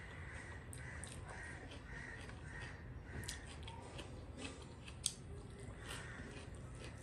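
Close-up eating sounds: chewing a mouthful of rice and curry eaten by hand, with wet mouth clicks and a sharp click about five seconds in. A faint rhythmic run of about eight short calls, roughly two a second, runs through the first three seconds.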